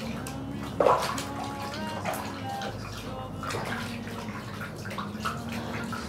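Water sloshing and splashing in a plastic baby bathtub as a baby is washed, with a louder burst about a second in.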